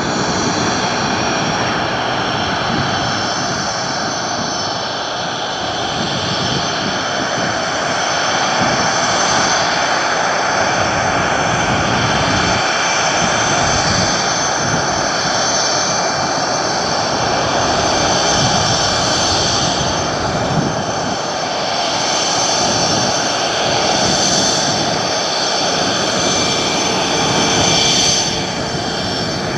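Aircraft turbine engines running steadily on the ramp: a loud, continuous engine noise with a high steady whine over it.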